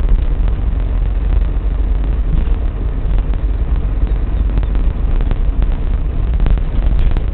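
Steady low rumble of a car on the move: road and engine noise, with a few faint ticks.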